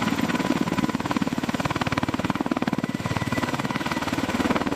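CH-53K King Stallion heavy-lift helicopter running on the ground with its three turboshaft engines: a rapid, even chop of the main rotor blades over a steady high turbine whine.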